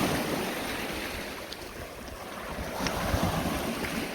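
Small lake waves washing onto a rocky shore, the wash swelling and ebbing twice, with wind rumbling on the microphone.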